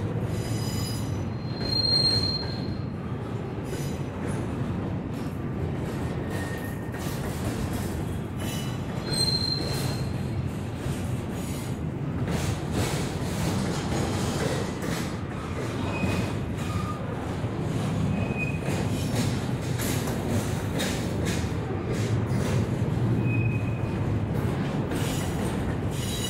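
Double-stack intermodal well cars rolling past: steel wheels rumbling and clicking over the rail, with short high-pitched wheel squeals a few times.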